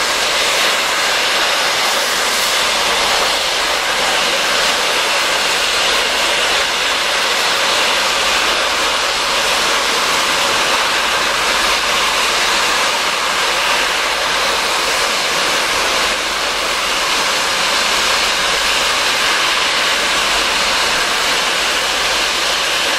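LMS Princess Coronation Class steam locomotive 46233 standing and blowing off steam, a loud, steady hiss that does not let up.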